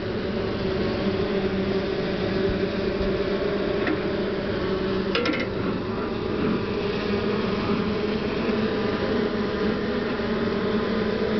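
Honey bees from a colony in a hollow tree buzzing in a steady hum around the nest entrance, with a short click about five seconds in.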